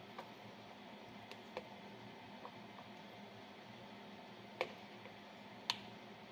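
Spaghetti server clicking against a bowl and pot while lifting cooked instant ramen noodles: a few light ticks, then two sharper clicks near the end, over a faint steady hum.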